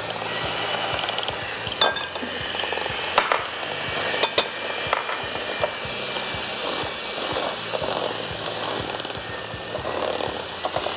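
Electric mixer beating butter in a bowl: a steady motor whir with a few sharp clicks along the way.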